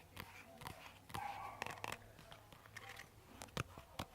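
Irregular sharp clicks and light scraping from small objects handled close to the microphone, with two brief whispers.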